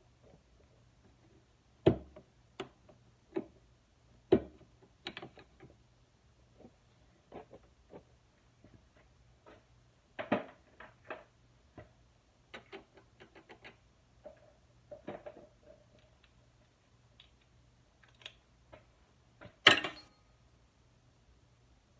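Hand tools working on a mini bike engine: irregular metallic clicks, taps and clinks, with a few sharper knocks standing out and the loudest one near the end.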